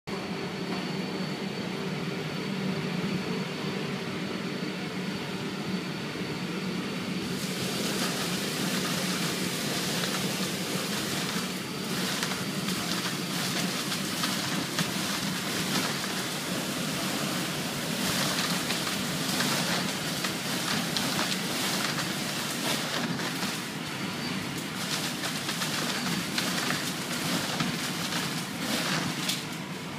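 Greenhouse central leaf-disposal vacuum pipe sucking pruned tomato leaves out of a leaf cart: a steady rush of air over a low hum. About seven seconds in the hiss turns brighter and is broken by irregular rustling and crackling as leaves are fed into the pipe's mouth.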